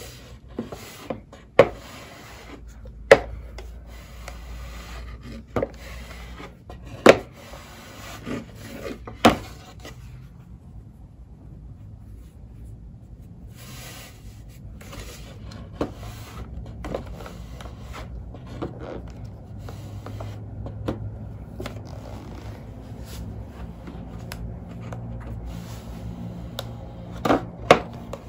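Cotton fabric being folded and smoothed by hand on a tabletop, with a steady rubbing of cloth and a dozen sharp taps and knocks against the table. Near the end comes a quick pair of louder knocks as the steam iron is set down.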